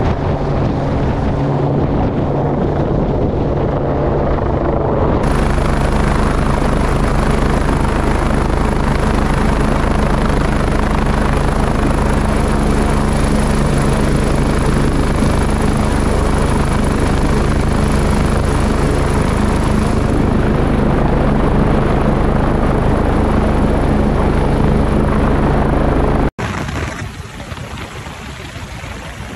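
Helicopter running close by in a hover, its rotor and turbine a steady drone with a high turbine whine on top. An abrupt cut about 26 seconds in switches to a quieter, rushing wind-like noise on the microphone.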